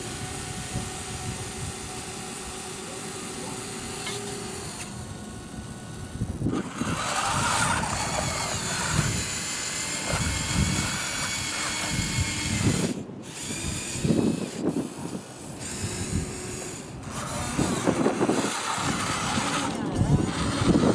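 Small electric drive and bucket motors of a radio-controlled toy wheel loader whining through their gearboxes as it lifts its bucket, reverses and drives forward, starting and stopping in runs.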